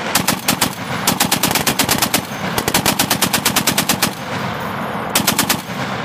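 M2 Browning .50-calibre heavy machine gun firing in several bursts of rapid shots, about nine rounds a second, with short pauses between the bursts.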